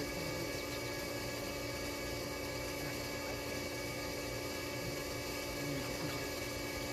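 Steady machine hum with a few held tones over a constant hiss, unchanging throughout.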